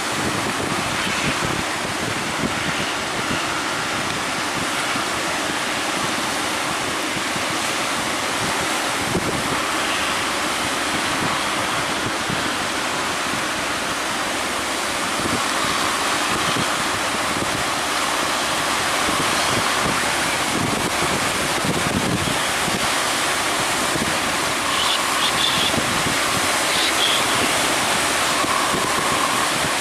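Large sea waves breaking in continuous surf, with wind buffeting the microphone; the rush grows slightly louder in the last third.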